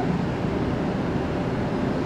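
Jet airliner engines, a steady low rumble with a faint hum in it.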